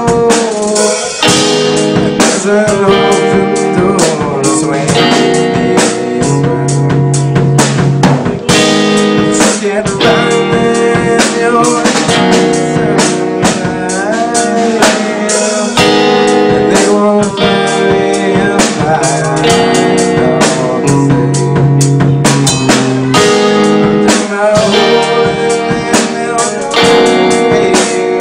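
Live rock band playing a song loudly: electric guitars over a drum kit, with a man singing into the microphone.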